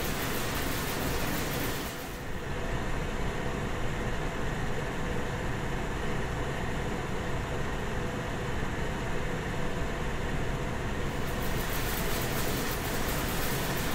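Steady industrial machine noise, a dense even hum and hiss with no distinct strokes. It sounds duller for a stretch in the middle, then brighter again near the end.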